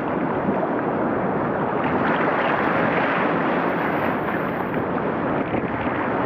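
Ocean surf and moving seawater making a steady, even wash.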